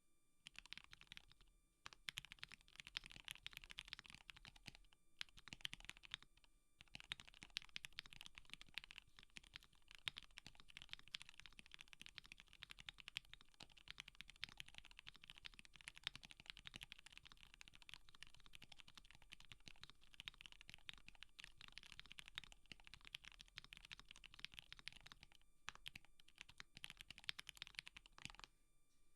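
Fast continuous typing on a KBD67 Lite R2 mechanical keyboard with Gateron Black Ink V2 linear switches and WoB keycaps. The space bar's stock stabilizers are dampened with a bandaid layer. It is a dense stream of key clacks with brief pauses about two, five and seven seconds in and again near the end.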